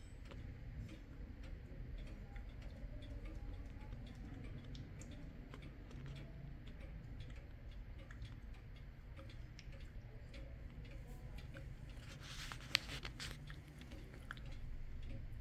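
Kienzle pendulum wall clock ticking steadily and faintly. About twelve to thirteen seconds in there is a brief rustle with one sharp click.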